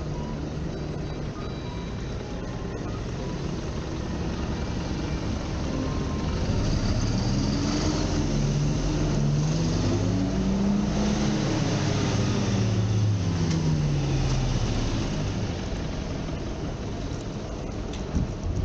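A motor vehicle's engine passing on a city street, growing louder over several seconds, its pitch rising and then falling, then fading back into steady traffic noise. A couple of short knocks come near the end.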